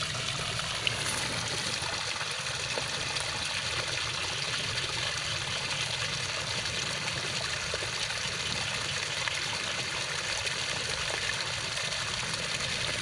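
Steady trickling of water running through a flooded rice paddy.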